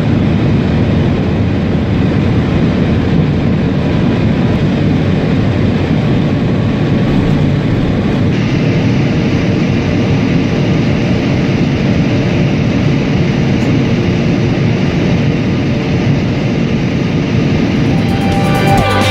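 Steady rushing noise of a high-speed train running at speed, turning brighter about eight seconds in.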